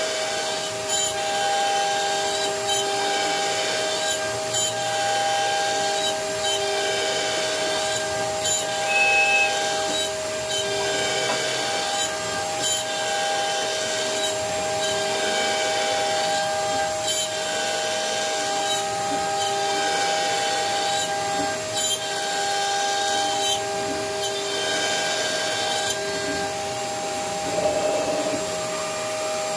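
CNC router spindle running with a steady whine while its bit mills a pocket into a wooden board, the cutting noise swelling and fading every second or two as the bit makes its passes.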